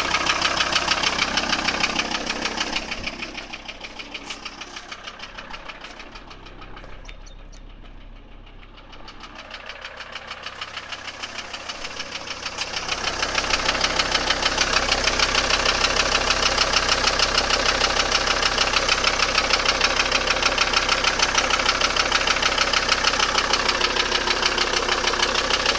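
Volkswagen T4 2.5 TDI (AXG) five-cylinder diesel engine idling with a fast, even rattle. The rattle fades down about three seconds in and comes back to full strength after about thirteen seconds.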